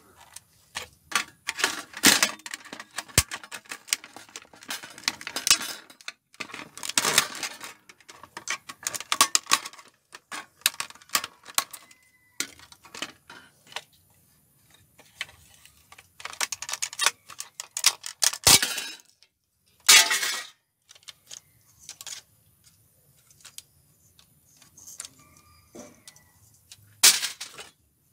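Clatter of a computer DVD-ROM drive's sheet-metal case and plastic parts being handled and taken apart with a screwdriver: irregular clicks and rattles with several sharp knocks.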